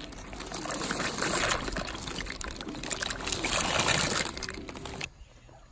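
Dry penne poured from a plastic bag into a pot of bubbling water: a steady rattling rush of pasta pieces sliding out and dropping in. It cuts off abruptly about five seconds in.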